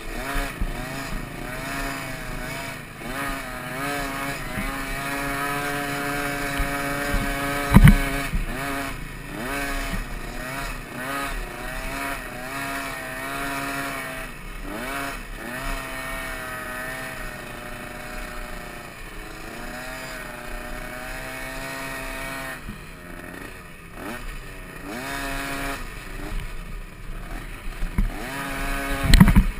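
Small youth dirt bike engine, heard close from the rider's helmet, revving up and down as it rides the track, its pitch rising and falling over and over. Two sharp knocks stand out, about eight seconds in and again near the end.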